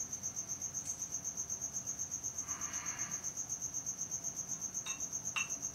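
A cricket chirping steadily, a high-pitched pulsing trill at about eight pulses a second. Near the end come two light clicks as a liqueur bottle is handled over a metal mixing glass.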